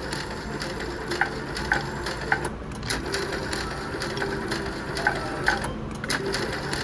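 Slot machine spinning: short clicks with small chiming tones, roughly twice a second, over steady casino background noise.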